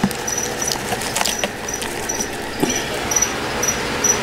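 Dry leaf litter and moss crackling and rustling as it is handled close to the microphone, with scattered clicks. A steady series of short high chirps, about two a second, runs behind it.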